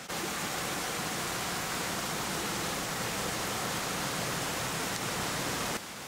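Waterfall: a steady, even rush of falling water that cuts off suddenly near the end.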